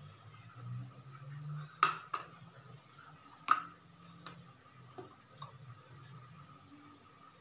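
Kitchenware being handled: a few sharp clinks of a glass bowl and utensils, the loudest two about two seconds in and one about three and a half seconds in, then a few lighter taps, over a steady low hum.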